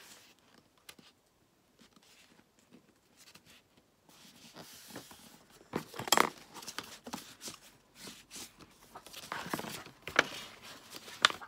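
A sheet of paper being folded and creased by hand, heard as scattered rustles and crisp crackles in short bursts that come mostly in the second half, the strongest about halfway through.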